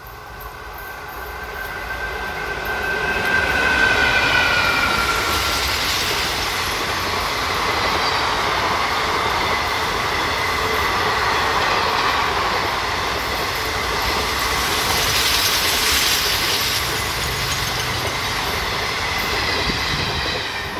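A train running past: the sound of its wheels and wagons grows over the first four seconds, then holds steady. A faint high whine from the wheels sounds in the first few seconds.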